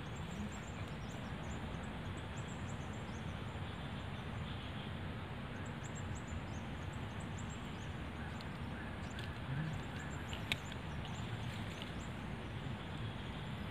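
Steady outdoor background hiss with many faint, short, high chirps scattered through it, and a single sharp click about ten seconds in.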